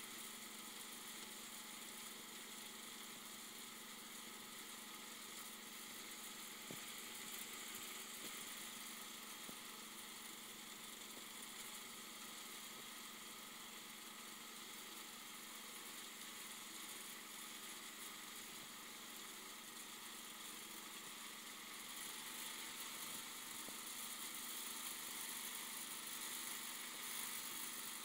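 Kohler K241 single-cylinder engine of a Wheel Horse 310-8 garden tractor running steadily, a little louder over the last several seconds.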